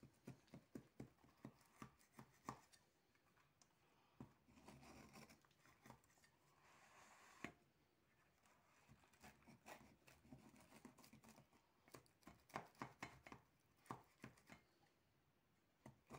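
A knife cutting into a crisp baked pastry pie crust: a run of faint, irregular crunches and clicks, with one sharper click about seven and a half seconds in.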